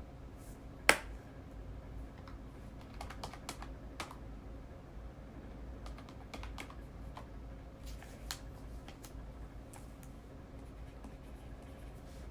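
Irregular tapping of keys, a few taps at a time with pauses between, with one much louder click about a second in, over a steady low hum.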